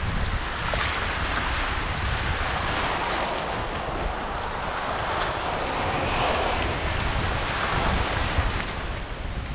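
Sea waves washing into a rocky cove, surging and easing several times, with wind buffeting the microphone.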